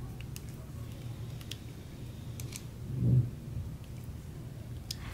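Faint scattered clicks from a folding knife and small tools being handled on a work surface, with one low thump about three seconds in.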